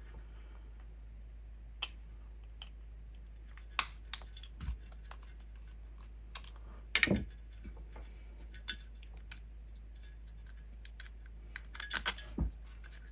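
Scattered small clicks and knocks of plastic and metal parts being handled on a workbench, as an old RC car's AA battery holder is worked loose and opened. There is a louder cluster of knocks about seven seconds in, and another near the end.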